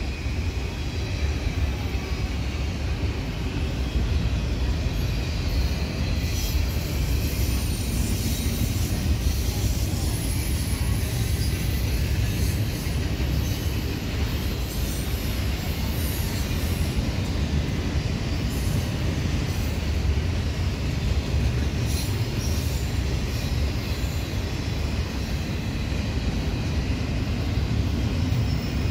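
Double-stack intermodal freight train's container cars rolling past at speed: a steady rumble of steel wheels on rail, with occasional brief high squeals.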